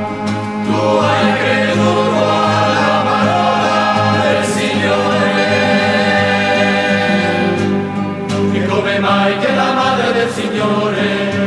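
Choir singing a slow hymn to Mary, with instrumental accompaniment.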